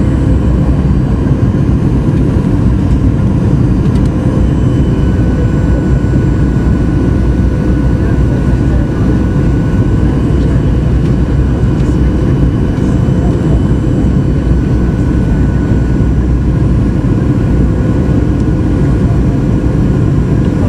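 Steady cabin noise inside a Boeing 737-800 on its approach: the rush of its CFM56-7B jet engines and the airflow, with a few faint steady whining tones over it.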